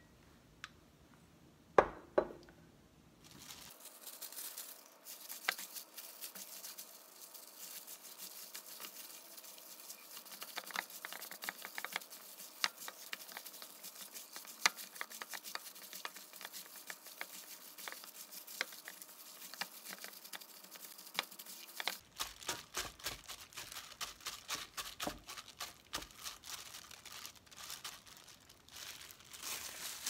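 Hands kneading sliced beef and onions with bulgogi marinade in a stainless-steel bowl: continuous wet squishing and crinkling with many small clicks. Two sharp clinks come about two seconds in.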